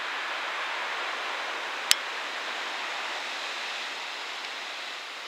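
Steady hiss of rain falling, with a single sharp click about two seconds in.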